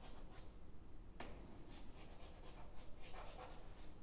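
Faint chalk strokes on a blackboard while resistor zigzags and lines are drawn: short scratches and taps, with a sharper tap about a second in.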